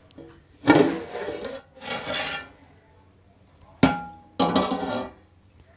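Aluminium lid scraped off a metal cooking pot at the end of dum steaming. It is set down with one sharp clank that rings briefly, with metal scraping before and after.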